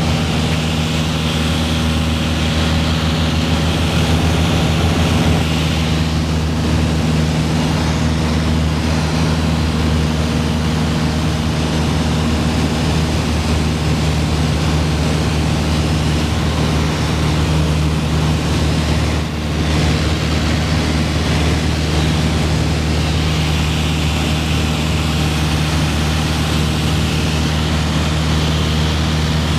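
Piper PA-28-161's four-cylinder Lycoming engine and propeller running steadily in flight, heard as a constant drone inside the cockpit.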